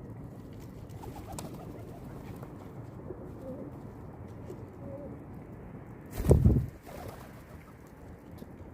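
Pigeons cooing softly over a steady low background, with a brief loud rushing thump about six seconds in.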